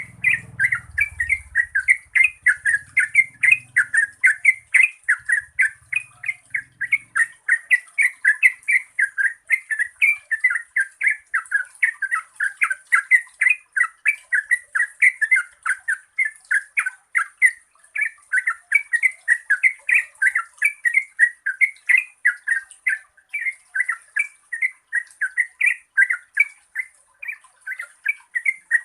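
Yellow-vented bulbul singing a long, unbroken run of quick, bubbly warbled notes, several a second, over a faint steady high hiss.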